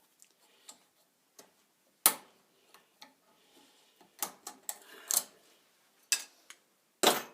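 Wire cutters gripping and working a PEX pinch clamp off a pipe: a string of sharp metal clicks and snaps at irregular intervals. The loudest come about two seconds in and just before the end.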